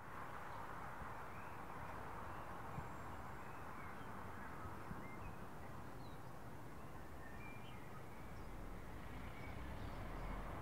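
Faint outdoor ambience: a steady background hiss with short bird chirps scattered through it, and a low rumble that builds near the end.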